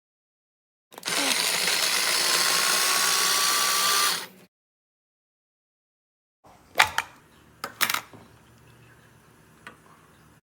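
Mini electric food chopper's motor runs for about three and a half seconds, its pitch rising slightly, then cuts off sharply. A couple of seconds later come several sharp clicks and knocks.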